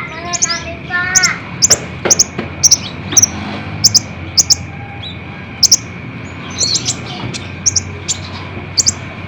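Song of a kolibri ninja sunbird: short, sharp, very high chirps, often in quick pairs, repeated every half second or so. A few lower, bending notes come in the first second, over a faint steady high tone.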